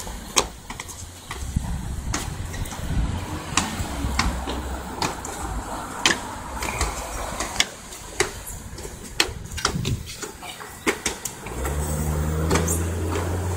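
Irregular sharp knocks, slaps and scuffs of shoes landing on concrete steps and hands grabbing metal stair railings as people vault over them again and again. A steady low hum comes in near the end.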